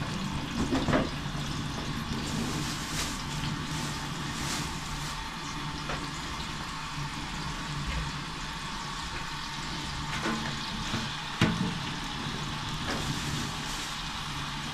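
Hot oily liquid sizzling steadily in a large steel cooking pot, with a few short knocks and clicks, the loudest about a second in and again around eleven seconds.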